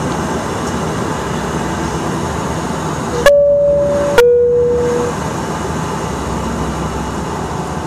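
Steady drone of the Q400's turboprop engines and propellers heard inside the cabin, with a two-tone cabin chime about three seconds in: a high tone, then a lower one a second later, each starting with a click. The second tone fades out within about a second.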